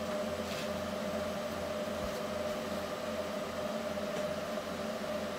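Steady hum of running workshop equipment at an even level, with a constant mid-pitched tone over a low hum and a few faint ticks.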